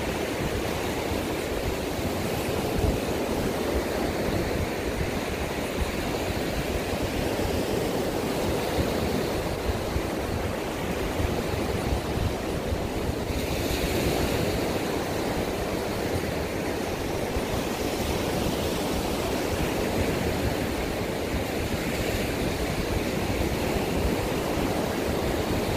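Steady rush of ocean surf breaking on a sandy beach, with wind on the microphone.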